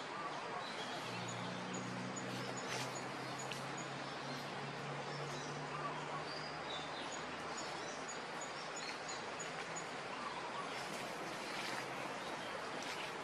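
Outdoor ambience: a steady hiss of background noise with scattered short high chirps and a faint, evenly repeating high ticking. A low steady hum is heard in the first half and fades out about seven seconds in.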